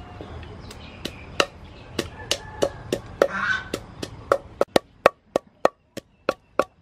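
Wooden pestle pounding red chilies in a wooden mortar: steady sharp knocks, about three a second.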